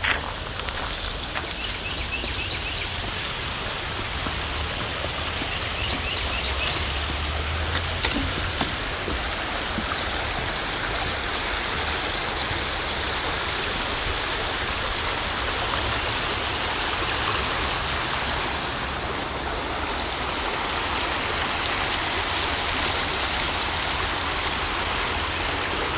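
Creek water running steadily, an even rushing sound, with a low rumble underneath. Short series of bird chirps come about two seconds in and again around six seconds, and a couple of sharp knocks sound around eight seconds.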